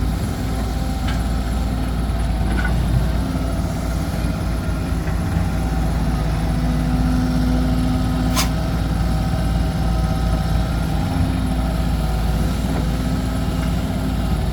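Heavy diesel engines of an excavator and a dump truck running steadily while the excavator loads soil into the truck. One short sharp click about eight seconds in.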